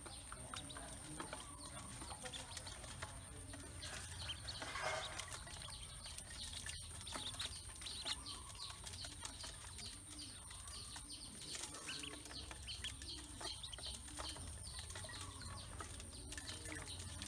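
A brood of ducklings peeping rapidly and continuously as they feed, with small clicks of bills pecking in an aluminium basin.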